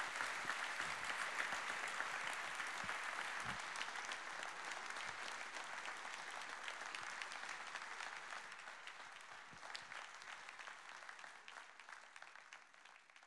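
A large hall audience applauding, a dense, steady clatter of many hands clapping that slowly dies away toward the end.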